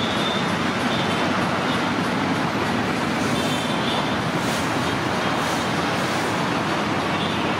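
Steady road traffic noise: a continuous, even rush of many vehicles with no single one standing out.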